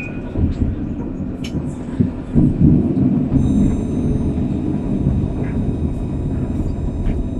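Alstom Citadis 302 tram running along its track, heard from the driver's cab: a steady rumble of the wheels on the rails with a few sharp clicks. About halfway through, a thin high whine of several steady tones joins in.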